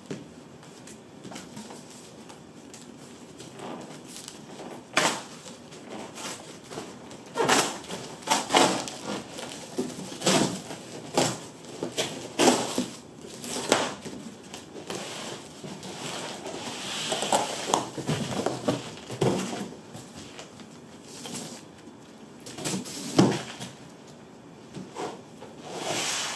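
Cardboard being handled: box flaps folded back and a boxed subwoofer pulled out of its shipping carton, with repeated scrapes, rubs and knocks of cardboard on cardboard. A longer scraping rush comes just past the middle, and a loud knock near the end.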